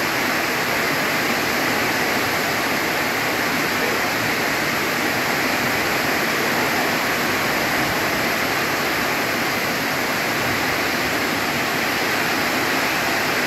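Heavy rain pouring down in a steady downpour, an even, unbroken hiss.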